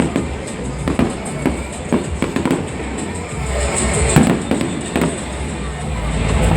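Fireworks going off in quick succession, a string of sharp bangs and pops over a low rumble, with music playing behind them.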